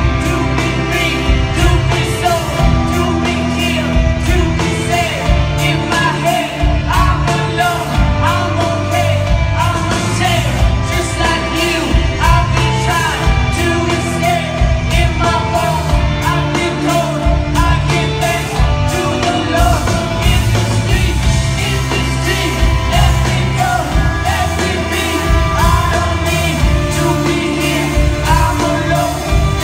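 Live rock band playing, with a singer over electric guitars, bass, drums and keyboards, heard from the crowd in a large hall.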